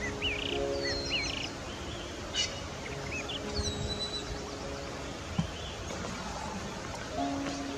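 Soft background music of held chords over a steady hiss, with scattered short bird chirps and whistles, most of them in the first half. There is one brief tap about five seconds in.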